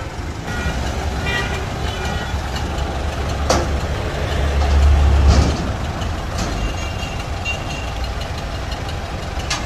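Kubota M7040 tractor's diesel engine running as the tractor is driven across onto a truck, a steady low rumble that grows louder for about a second around five seconds in. A single sharp knock about three and a half seconds in.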